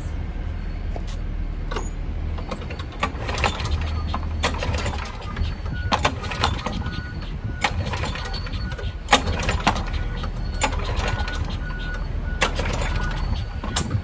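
Construction-site noise: a steady low machinery hum with scattered knocks and bangs, and from about six seconds in a high beep repeating at an even pace.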